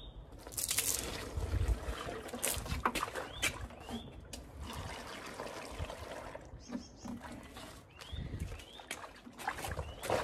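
Water sloshing and squelching inside rubber waders as the wearer moves her feet, with irregular wet clicks and short rising rubber squeaks.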